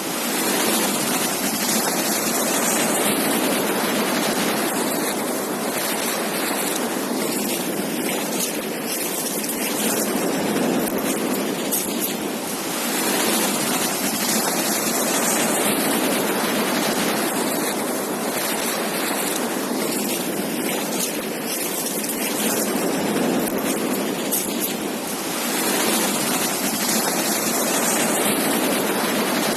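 Ocean surf washing onto a beach: a steady rushing hiss that swells and eases every several seconds as the waves come in.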